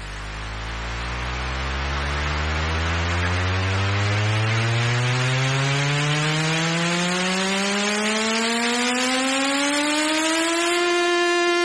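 Electronic dance music build-up: a synth riser climbs steadily in pitch for about ten seconds under a rising noise sweep, with no drums, then levels off into one held note near the end.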